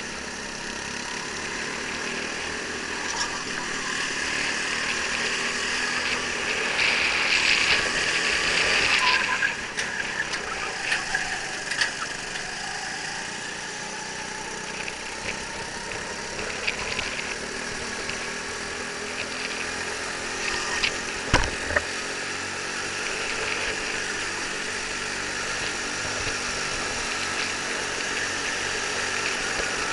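Go-kart engines running on track, heard from a camera mounted on the kart: the pitch rises and falls as the throttle opens and closes through the corners, over tyre and wind noise. A single sharp knock comes about two-thirds of the way through.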